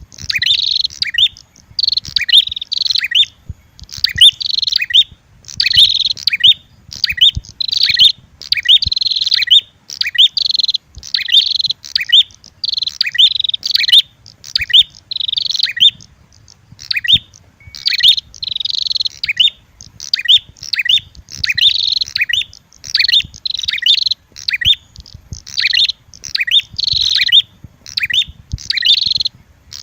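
Bird-lure recording of prenjak (prinia) calls: a red-headed prenjak's lure call mixed with female prenjak fighting calls. Loud, rapid high chirps come in short phrases about once a second, with a brief pause about halfway through.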